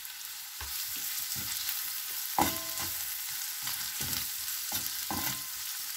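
A kitchen knife chopping carrot on a plastic cutting board: a string of uneven knocks, two of them with a short ringing tone, over a steady sizzling hiss of frying.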